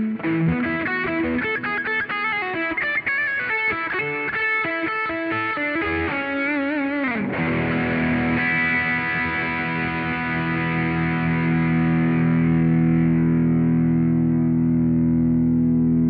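Electric guitar playing a fast lead line of single notes with bends and vibrato, then sliding down in pitch about seven seconds in and landing on a struck chord that is left ringing.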